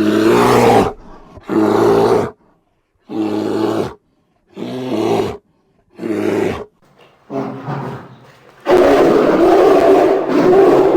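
Bear roaring: six short roars about a second and a half apart, then one long unbroken roar near the end.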